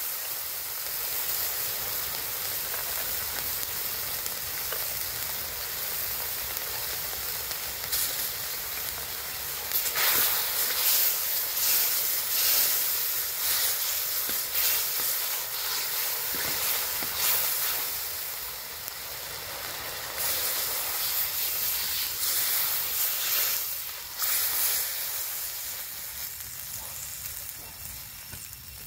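Food sizzling as it fries in a hot pan: a steady hiss that swells louder now and then.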